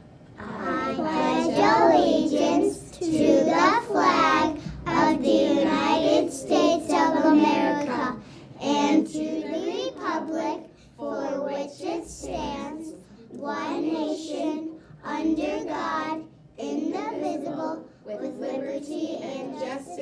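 Three young girls reciting the Pledge of Allegiance together, phrase by phrase with short pauses between.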